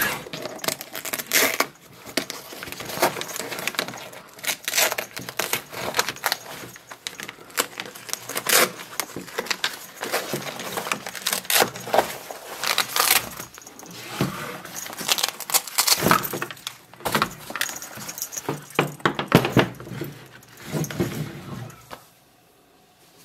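Football shoulder pads being handled while the removable inner pad liner is worked: irregular clicks, knocks and rustles of the hard plastic shell, padding and straps. The sound stops suddenly near the end.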